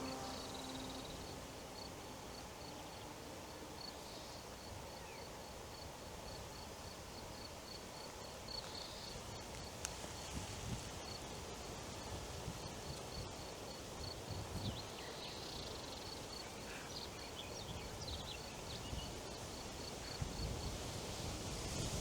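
Forest ambience: wind moving through leaves as a steady soft rustle, with a faint high chirp repeating about twice a second from an insect or small bird.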